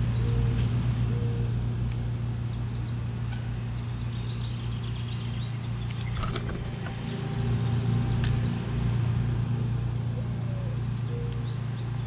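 Faint chirps of small feeding birds, heard a few times over a steady low rumble that is the loudest sound, with a couple of sharp clicks in the middle.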